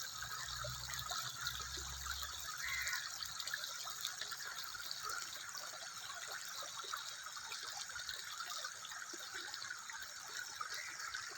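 Water running in a steady trickle, with small droplet ticks through it. A low rumble underneath fades out in the first few seconds.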